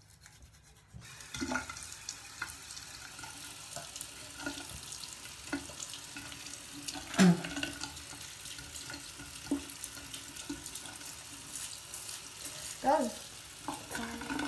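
Bathroom sink tap running, starting about a second in, with scattered knocks and clatters at the basin and one louder knock about halfway through.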